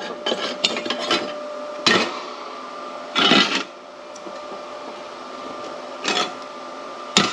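Workshop rummaging: metal parts and tools being moved and knocked about in a search for a lost offcut, with a run of clicks early on, then separate knocks and scrapes about two, three and six seconds in and a sharp one near the end, the longest about three seconds in. A steady hum runs underneath.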